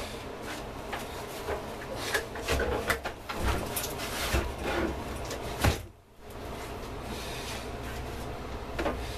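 The metal case of a Mustang 505 welding inverter being turned over on a workbench: scraping, rubbing and irregular knocks, with one loud knock a little past the middle.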